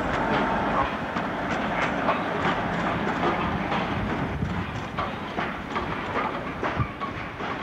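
British Rail Class 56 diesel locomotive running past at close range, its wheels clattering rapidly over the rail joints, the sound easing slightly near the end.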